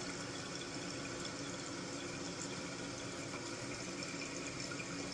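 Water running steadily into a toilet tank through a newly installed fill valve, an even hiss with a faint steady hum.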